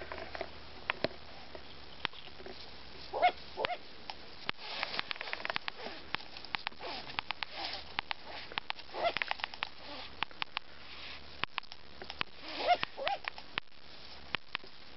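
Long-eared owl chicks snapping their bills in rapid, irregular sharp clicks, with hissing and a few short cries: defensive alarm at an intruder at the nest.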